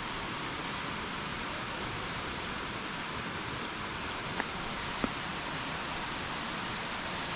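Steady rush of falling water from a jungle waterfall, with a few short sharp clicks about halfway through.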